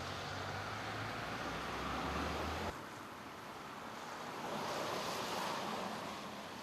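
Outdoor street ambience with a steady hiss. A low hum cuts off abruptly about a third of the way in, then the tyre noise of a passing car swells and fades.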